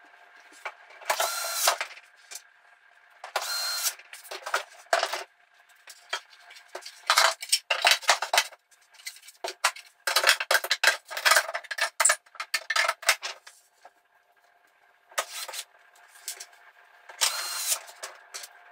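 Cordless electric screwdriver driving screws into a keyboard's bottom panel, its motor whining in three short runs of about half a second each, near the start and near the end. In between comes a stretch of rapid clicks and knocks as screws and the keyboard case are handled.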